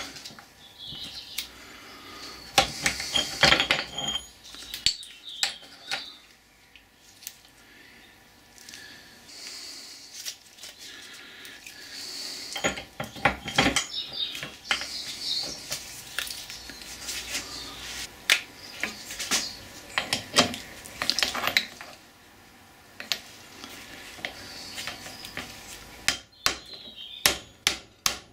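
Metal clinks and knocks as a Boxford lathe drive shaft with its cone pulley and bearing carrier is handled and shifted in a bench vise. About 26 seconds in, a run of mallet blows begins, roughly two a second, driving the bearing carrier onto the shaft.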